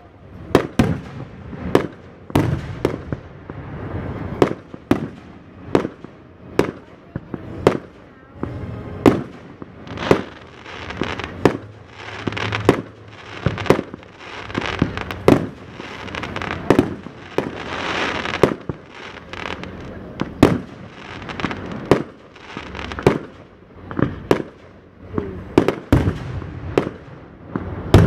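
Fireworks launching and bursting one after another, a sharp bang about once a second, with fizzing and crackling between the shots.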